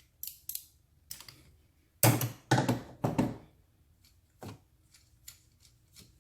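Several sharp clicks and knocks of hand tools and parts being handled while an engine's ignition coil is unbolted and pulled out. The three loudest come close together a couple of seconds in, with a few lighter clicks after.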